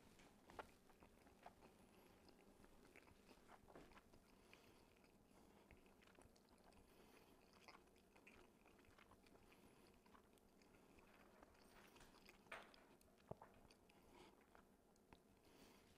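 Faint chewing of a mouthful of baked pasta with sauce, cheese and sausage, with a few soft clicks scattered through it, the sharpest two about twelve and a half and thirteen seconds in.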